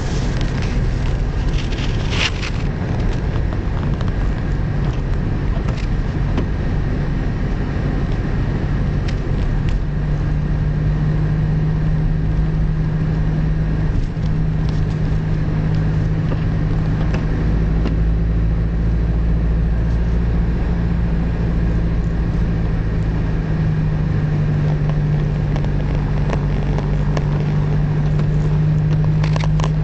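Car driving, with a steady engine hum and road noise. The engine note grows stronger about a third of the way in and holds there.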